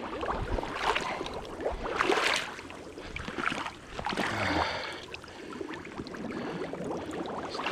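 Fast-flowing creek water rushing and splashing around a person's legs as he wades through a thigh-deep current, the splashing swelling and easing every couple of seconds.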